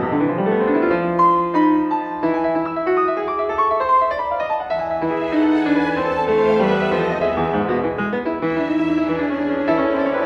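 Background music: a classical-style piece of piano with bowed strings.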